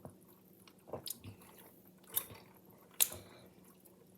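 A person sipping soda through two straws at once: faint sips and mouth sounds, with a few short, sharp slurps or lip noises about one, two and three seconds in.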